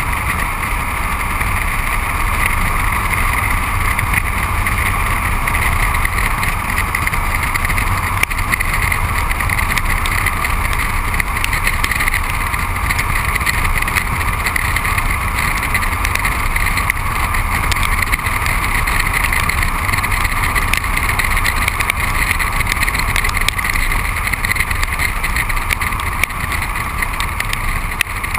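Steady road and wind noise of a car driving at speed: the front tyre running on a wet road and air rushing past a microphone mounted low on the bodywork, over a low rumble.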